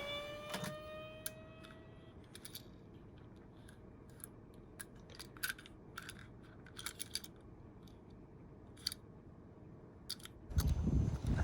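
Scattered light clicks and taps of small die-cast toy cars being handled and set in place, after the last note of a musical tone fades. About a second before the end, a low rolling rumble starts.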